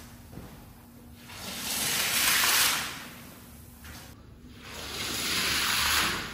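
Water spray hissing across a wet rug in two sweeps, each swelling and fading over about two seconds.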